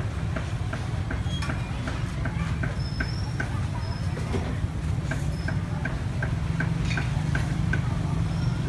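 Motor-driven rotisserie running: a steady low motor rumble with light, regular ticking, about three ticks a second, in two runs.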